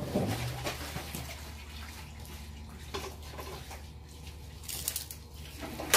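Water running, with a few light clicks and knocks and one sharp knock near the end.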